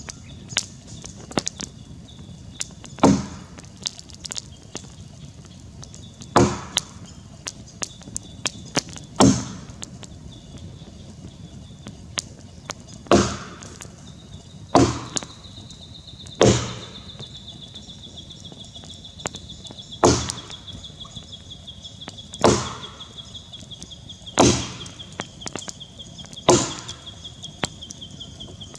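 Axe chopping into a green Grey Gum log: about ten heavy blows, spaced two to four seconds apart, with small clicks between them. About halfway through, a steady high-pitched whine comes in and keeps going under the chopping.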